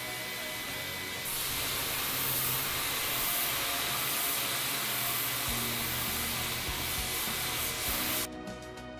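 Worx Hydroshot 725 psi battery pressure washer spraying a steady, hissing jet of water against a paddleboard, louder and brighter from about a second in. The spray cuts off suddenly near the end, with background music underneath throughout.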